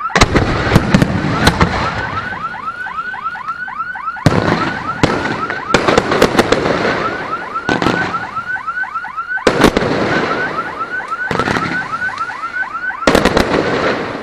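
Aerial firework shells bursting overhead: a series of loud bangs with crackling, several in quick succession. Throughout, a car alarm sounds a repeating short whooping tone at about four a second.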